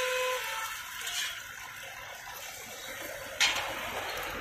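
Beaten egg sizzling on a hot flat iron griddle as it is poured out, a steady hiss that eases after the first second or so. A horn cuts off just after the start, and there is one sharp clack about three and a half seconds in.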